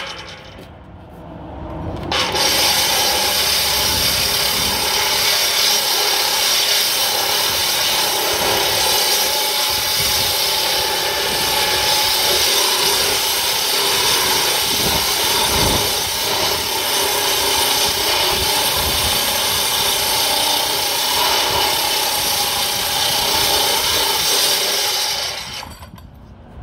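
Angle grinder with a Star Cup wheel switched on about two seconds in, grinding across a painted steel plate with a steady motor whine under a harsh scraping rush, then switched off near the end.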